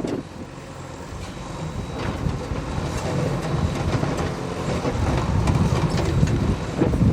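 Backhoe loader's diesel engine running under working load, a dense low rumble that dips briefly at the start and then builds back up, with a few sharp knocks.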